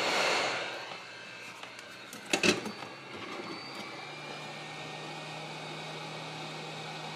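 Hot-air rework station blowing with a steady hiss onto a Raspberry Pi 3B board to desolder a shorted surface-mount TVS diode; the hiss fades out about a second in as the nozzle is taken away. A sharp knock follows about two and a half seconds in, and a steady low hum sets in about four seconds in.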